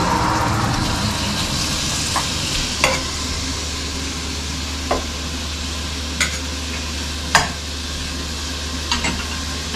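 Bacon and ham sizzling as they fry in butter and garlic in a pan, stirred with a utensil that knocks sharply against the pan about six times.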